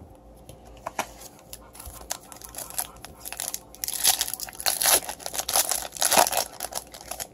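Foil wrapper of a 2018 Topps Chrome baseball card pack being torn open and crinkled by hand. A few light clicks of cards being handled come first, and the tearing and crinkling is loudest in the second half.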